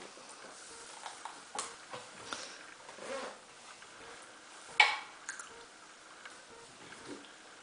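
Toddlers eating apple wedges: soft biting and chewing sounds with scattered small taps and clicks at a wooden high-chair tray, and one sharp knock about five seconds in.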